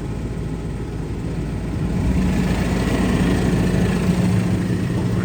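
Tractor engine running steadily, growing louder about two seconds in with a steady hum.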